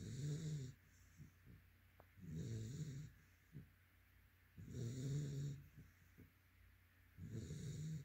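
Yellow Labrador retriever puppy snoring in its sleep: four low-pitched snores with a hissing edge, each under a second long, coming about every two and a half seconds.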